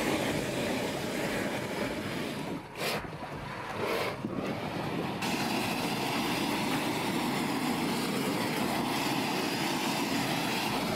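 High-pressure blasting jet hissing steadily as corroded guardrail bolts are blasted clean, with two short breaks a few seconds in.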